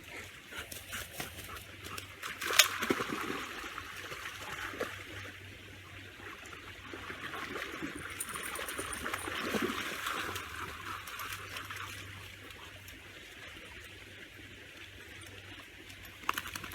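Water trickling and splashing around swimming Labradors, with one sharp knock about two and a half seconds in.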